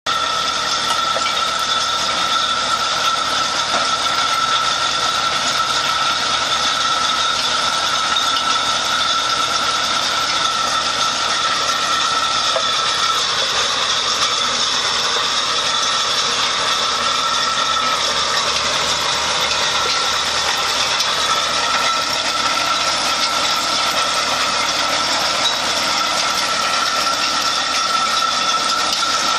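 Farm tractor engines and a front-mounted field implement running steadily through stony ground, with a constant high whine over the engine noise.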